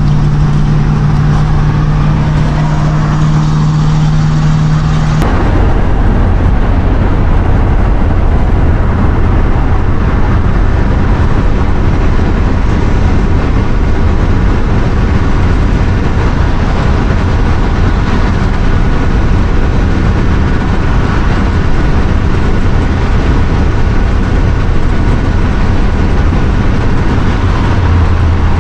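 Cab noise of a 1989 Winnebago Superchief motorhome cruising at highway speed: its Chevy 454 big-block V8 running steadily along with tyre and road noise. About five seconds in, the sound changes abruptly from a steady hum to a rougher, noisier drone.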